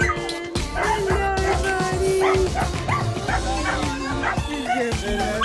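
A small dog yipping and whining repeatedly, eager to be let into the pool, over background music.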